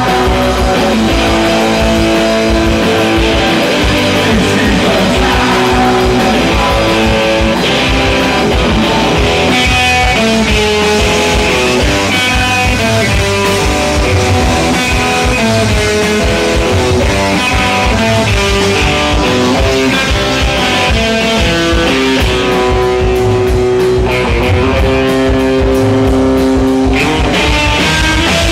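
Punk rock band playing live, with electric guitar holding long notes over drums and bass in a stretch with little or no singing.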